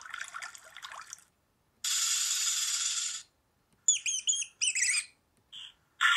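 A series of short sound clips played through a laptop's small speakers, thin with no bass. A second of noisy, watery-sounding burble is followed by a steady noise of about a second and a half, then a quick run of high chirps that dip and rise in pitch, with short sharp bursts near the end.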